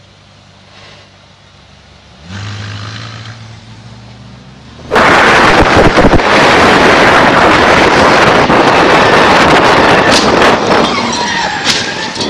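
Car noise: a faint low engine drone comes in about two seconds in. Then a sudden, very loud, distorted roar of a car driving fast takes over. It eases off near the end, with a few gliding tones.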